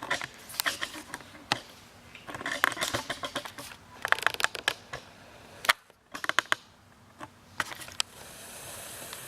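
Irregular clusters of sharp mechanical clicks and rattles from an L96 bolt-action airsoft sniper rifle being handled, with a soft steady hiss coming in near the end.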